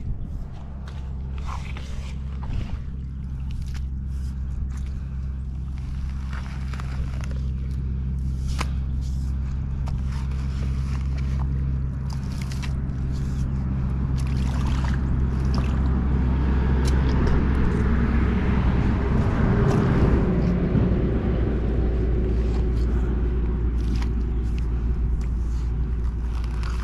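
Skid-steer loader engine running steadily, with scattered scrapes and knocks. It grows louder and rougher from about halfway, peaking around twenty seconds in, as the machine works.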